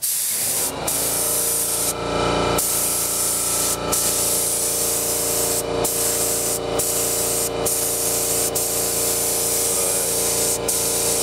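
Compressed-air gravity-feed paint spray gun hissing as it sprays paint, the hiss broken by short dropouts, over a steady hum. The paint is too thick, and the gun is sputtering, which the owner blames on not having thinned it enough.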